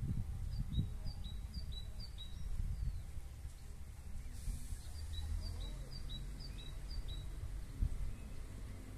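Wind on the microphone, with a small bird singing a high two-note phrase repeated about twice a second, in two runs with a pause between.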